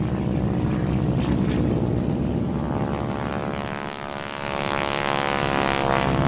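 A steady mechanical drone with a rapid flutter, like a motor driving a propeller. It dips briefly about four seconds in, then rises in pitch and grows louder toward the end.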